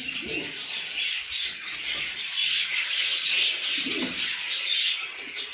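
Domestic racing pigeons in a loft: low cooing, once about half a second in and again about four seconds in, over steady high-pitched chirping.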